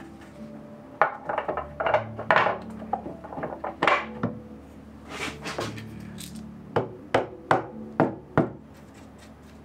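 A series of sharp clicks and knocks of tools and parts being handled in a bike build: a cluster in the first half, and about five crisp clicks in quick succession later on. Soft background music plays underneath.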